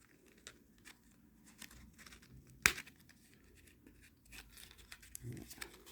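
Hands opening a cardboard lighter gift box: faint rustling and tearing of the packaging, with scattered small clicks and one sharp snap about two and a half seconds in.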